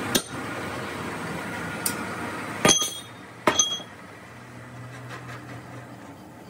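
Sharp metallic clinks and knocks on a cast-iron engine block with new cylinder sleeves, four in all, the two loudest about three seconds in, under a second apart, each with a short bright ring. A steady low hum underlies the first half.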